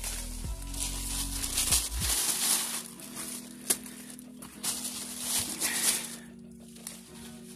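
Leaves and branches of an orange tree rustling in repeated bursts as fruit is picked, with one sharp click about halfway through and a low steady hum underneath.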